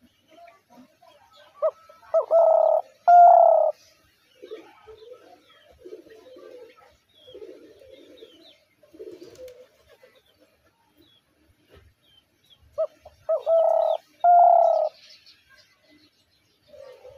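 Spotted dove cooing: two calls about eleven seconds apart, each a couple of short notes followed by two longer coos, with softer, lower coos in between.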